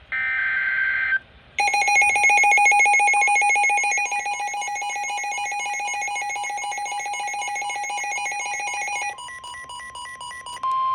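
Emergency Alert System broadcast tones: a roughly one-second burst of warbling SAME data tones, then the harsh, buzzy two-tone EAS attention signal for about seven and a half seconds, then a single higher weather-radio warning tone, broken up at first and steady from near the end. The tones open a severe thunderstorm warning.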